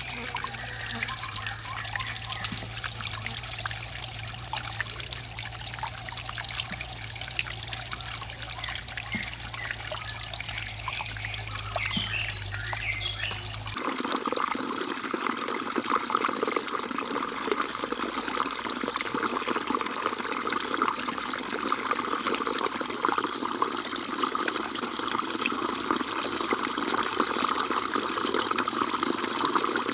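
Water trickling down a small rock waterfall into a garden pond, with a steady high whine over it. About halfway through the sound changes abruptly and the high whine drops out, leaving a fuller water noise.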